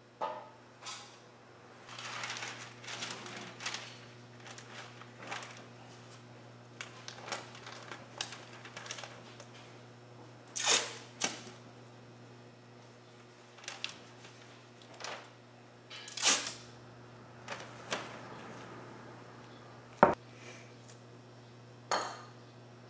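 Masking paper rustling and crinkling as it is spread and folded over a jeep's front end, with irregular sharp crackles and clicks from handling the paper and tape.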